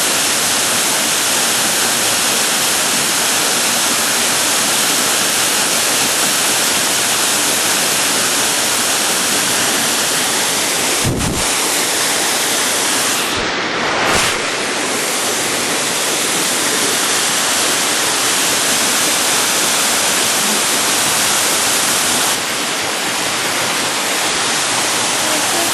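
Waterfall pouring, a loud, steady, even rush of falling water, with two brief low thumps a little before halfway through.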